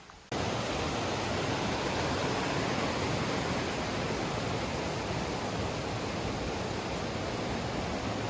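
Creek water rushing down a small waterfall, a steady even rush that cuts in abruptly just after the start.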